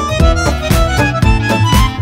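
Dance music with a steady fast beat, about four beats a second, and a violin melody.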